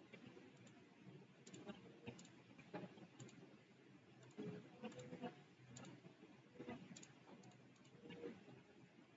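Faint computer mouse clicks, several short sharp clicks at irregular intervals over near-silent room tone.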